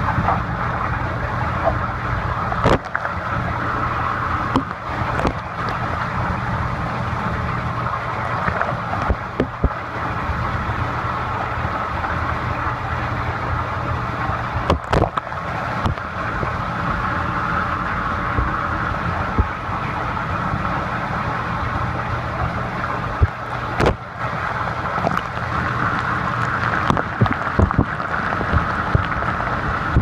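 Dishwasher running its wash cycle, heard from inside the tub through a phone's sealed waterproof case: a steady pump hum under the hiss of water spraying, with a few scattered knocks.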